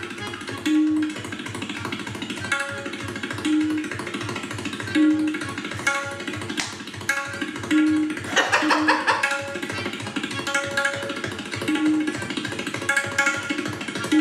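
Tabla solo: rapid, even strokes on the pair of hand drums in a galloping rhythm, with ringing tuned strokes coming back about every second. There is a dense flurry of strokes about eight seconds in.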